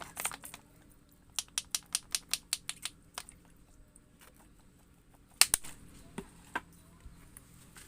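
A quick run of about a dozen sharp clicks, roughly six a second, then a few louder single clicks a couple of seconds later.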